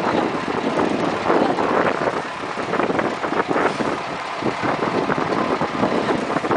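Moving truck running along a farm track, with wind buffeting the microphone in an uneven, fluttering rush.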